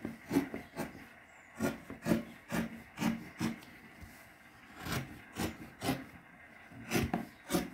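Scissors snipping through several folded layers of fabric: a run of short, crisp cuts coming in uneven groups, with a pause of about a second midway.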